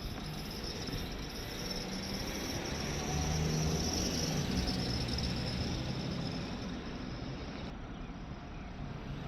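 Insects chirring in a steady high tone that cuts off shortly before the end, over a low engine rumble that swells and fades around the middle.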